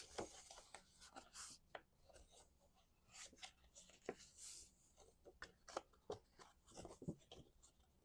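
Faint rustling, light scraping and small ticks of cardstock being folded and creased along its score lines by hand.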